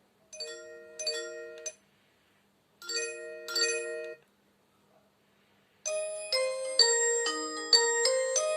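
Alcatel One Touch 2007D mobile phone playing its built-in bell-like alert tones through its speaker: a short chime phrase twice, about a second and a half long each, then a faster ringtone melody starting about six seconds in.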